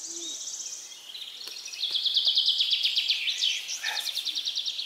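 Songbirds trilling in a spring forest: a fast, high trill of rapid notes in the first second, then a lower, louder trill from about two seconds in.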